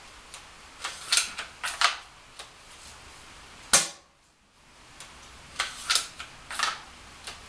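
ARES MS338 spring-powered airsoft bolt-action sniper rifle being cycled and fired: a quick series of clacks as the bolt is worked about a second in, one sharp shot near the middle, then the bolt worked again with several more clacks.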